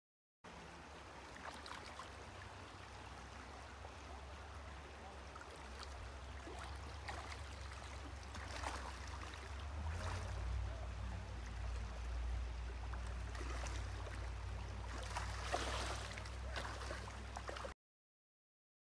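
Shallow gravel-bottomed creek running and gurgling over stones, with brief splashes in the water where chum salmon are spawning, under a steady low rumble that grows stronger about halfway through. It begins just after the start and cuts off suddenly near the end.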